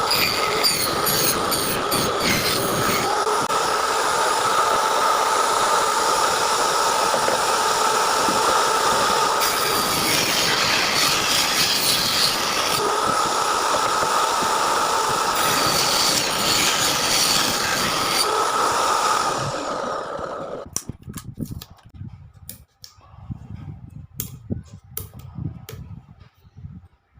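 An electric woodworking power tool runs steadily with a whining tone, cutting or shaping wood, and shuts off about twenty seconds in. After that come scattered light knocks and clicks of wood being handled.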